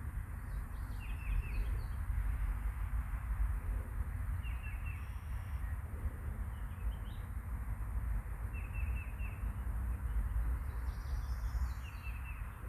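Small birds chirping in short runs of three or four quick high notes, four times, over a steady low background rumble.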